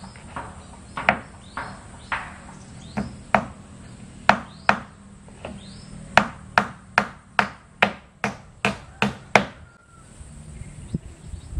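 Hammer striking nails into the wooden plank wall of a cabin. Single blows come unevenly at first, then a quicker steady run of about two or three blows a second that stops a couple of seconds before the end.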